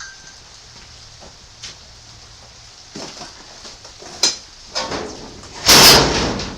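Sheet-metal workpiece being handled: a few scattered metallic knocks and clicks, then a loud rattling scrape of the panel lasting nearly a second near the end.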